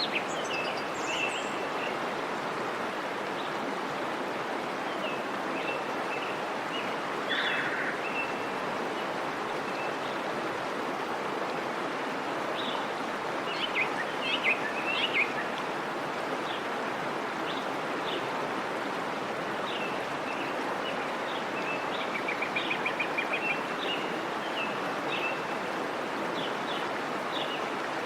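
Small birds chirping and calling over a steady rushing outdoor background noise, with a quick trill about three quarters of the way through.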